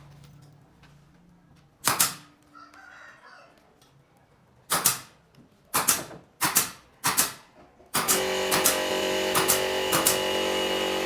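Five sharp knocks at uneven intervals, each dying away quickly. Loud music begins about eight seconds in.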